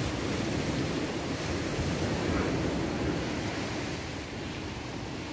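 Steady rush of sea surf washing onto the beach, with wind on the microphone; it swells slightly about two seconds in.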